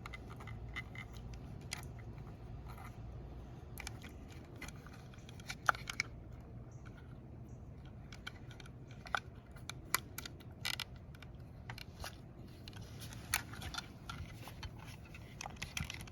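Irregular small clicks, taps and scrapes of hands handling a Roomba S9 drive wheel module while fitting its spring back onto a lip, with plastic and metal parts knocking together.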